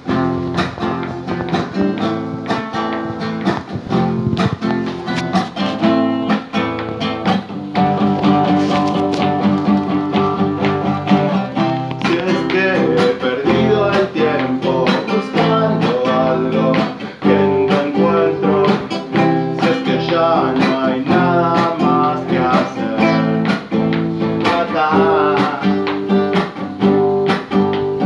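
Nylon-string classical guitar played as a song accompaniment, with a man singing over it near the end.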